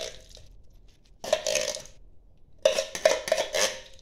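Clatter and scraping from plastic food basins being handled on a tiled floor: one burst just over a second in, then several sharp knocks near the end.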